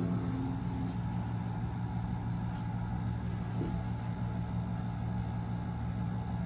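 The tail of the MacBook Air M1's startup chime dies away in the first second. After that there is only a steady low hum.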